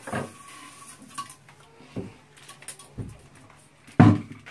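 Handling clatter of a braided metal sprayer hose and its fittings against a toilet: a few scattered knocks and light metallic clinks, the loudest knock near the end.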